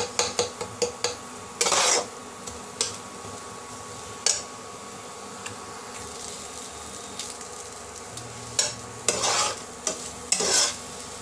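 Steel spatula scraping and stirring egg bhurji in a non-stick pot as it is cooked down until dry. The scraping comes in irregular bursts with sharp clicks: a cluster at the start, a louder scrape about two seconds in, and several near the end, with a faint sizzle of frying between.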